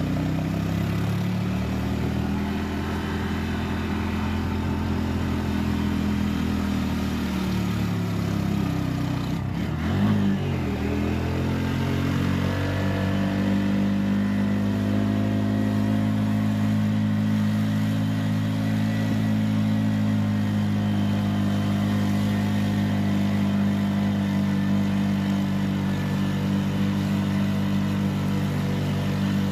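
Bus engine heard from inside the bus, running steadily. Its pitch dips sharply and climbs back once about ten seconds in, then holds even.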